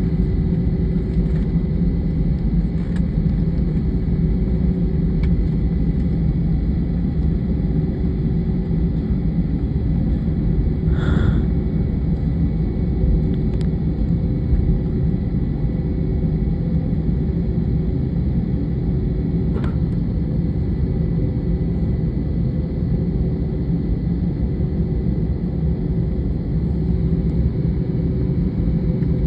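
Steady drone of an airliner's jet engines and airflow heard inside the passenger cabin, a low rumble with a faint steady whine over it. Two brief light clicks come in the middle.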